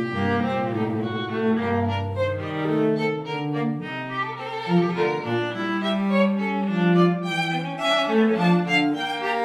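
A string trio of violin, viola and cello playing several interweaving lines together, with notes changing often over low sustained cello notes.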